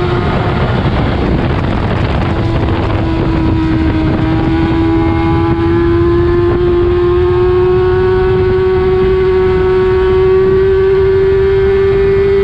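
Kawasaki ZX-6R inline-four sport bike engine at high revs under load. Its pitch dips briefly at the start, then climbs slowly and steadily as the bike accelerates, with heavy wind buffeting on the microphone.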